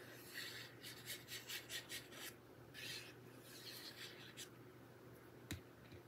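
Faint scratchy strokes of a fine-tip liquid glue bottle's nozzle drawn across cardstock, then the card being handled, with one small tap near the end.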